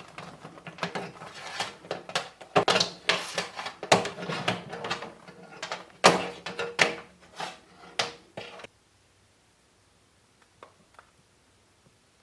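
A run of clicks, knocks and light rattles as a box fan is handled, with no motor running. They stop abruptly about two-thirds of the way through, and a few faint ticks follow.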